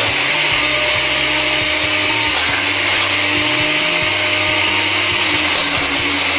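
Electric blender running steadily at full speed with a Nokia 3310 mobile phone in the jar, the phone being battered and ground by the blades; a loud, unbroken grinding noise.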